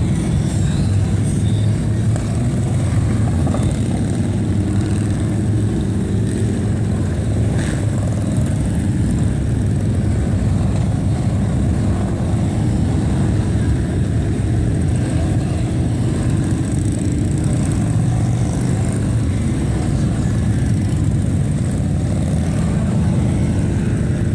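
A procession of touring motorcycles riding slowly past, many engines running together in a steady, deep, low-pitched sound.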